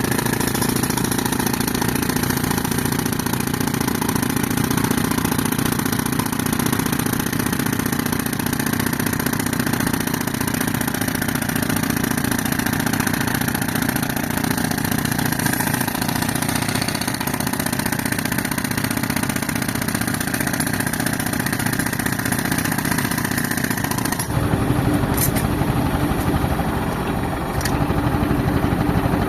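Tractor engine running steadily while it drives an air compressor; its sound changes abruptly about 24 seconds in.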